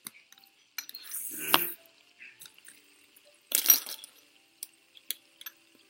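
Scattered clicks and clatter of small hard objects being handled, with two louder scraping or rattling noises, one about a second in and one about three and a half seconds in.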